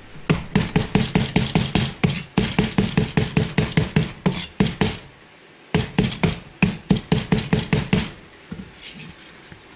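Chinese cleaver rapidly mincing green vegetable on a plastic cutting board, a steady run of about six chops a second. The chopping pauses briefly about five seconds in, resumes, and stops about eight seconds in.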